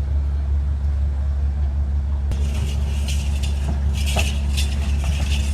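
A steady low mechanical hum, like an engine running. From about two seconds in, a light rattling jingle comes and goes over it.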